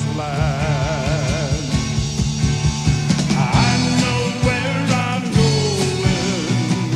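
Country-gospel band playing an instrumental break over a steady bass and drum beat, with a lead melody line held with wide vibrato in the first second or so.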